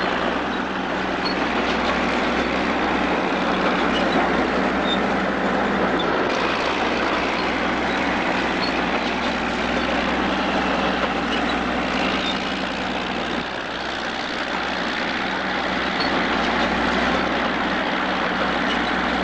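Bulldozer's diesel engine running steadily under load, a constant mechanical rumble and clatter.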